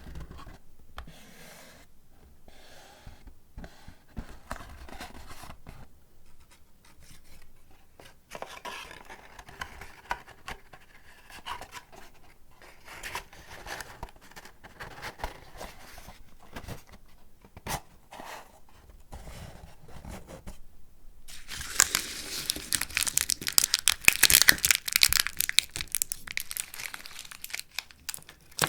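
Paper packaging handled close up: soft rustling and light ticks at first, then about three-quarters of the way through, loud crinkling and tearing as the wrapping is torn open.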